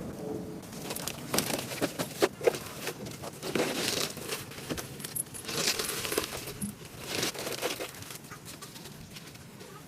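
Irregular crinkling and scraping noises mixed with sharp little clicks, as of hands working on small parts, busiest through the middle and thinning out near the end.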